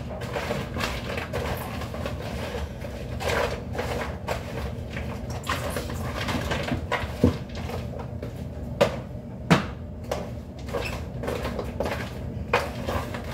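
A spoon scraping, tapping and rustling in a disposable aluminium foil pan as a salad is stirred and tossed with a thick dressing, with three sharper knocks in the second half.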